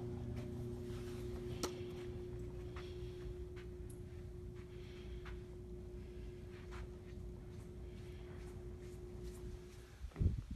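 Steady electrical hum: a clear held tone with fainter lower hum beneath it, stopping about ten seconds in, with a few faint ticks along the way. A short loud knock near the end.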